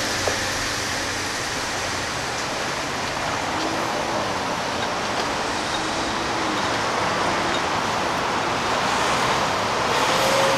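Road traffic: cars driving past, a steady rush of traffic noise that gets somewhat louder near the end.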